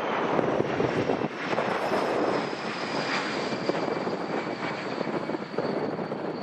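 Jet airliner's engines passing close by: a steady rushing roar with a thin high whine that slowly falls in pitch. Gusty wind buffets the microphone.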